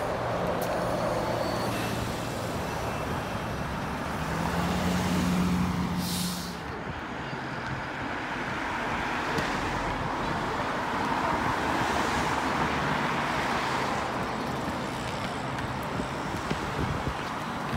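Street traffic with a New Flyer Xcelsior XE40 battery-electric transit bus driving past, giving a steady low hum, then cars passing. A short hiss comes about six seconds in.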